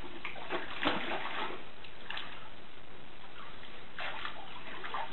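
Water splashing and sloshing in a shallow plastic kiddie pool as dogs paw at a floating ball and wade in, with a few louder splashes.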